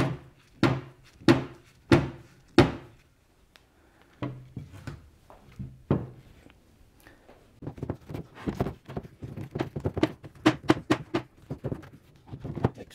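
Five sharp knocks about two-thirds of a second apart as a glued dowel-jointed wooden carcass is knocked together, then a few softer knocks. From about eight seconds in comes a quick run of light clicks and rattles as metal bar clamps are fitted and tightened across the frame.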